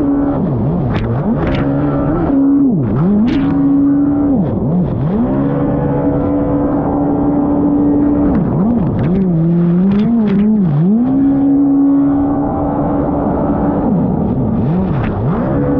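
Race jet ski's engine running hard at high revs, its pitch dropping sharply and climbing back again many times through the ride, with a longer wavering stretch about halfway through. Water spray and hull slaps add sharp hissing hits throughout.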